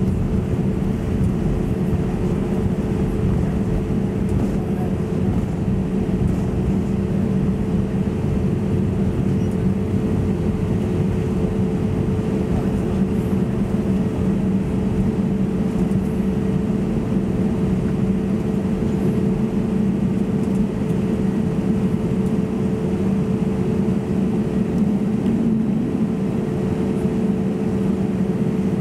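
Steady cabin noise of an Airbus A320neo with CFM LEAP-1A engines running: an even hum with two held low tones under a constant hiss.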